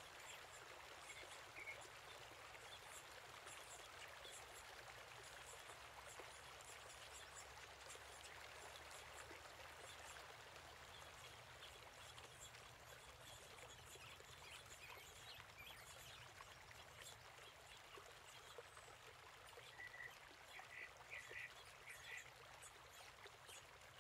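Near silence: a faint steady hiss, with a few faint short high chirps near the end.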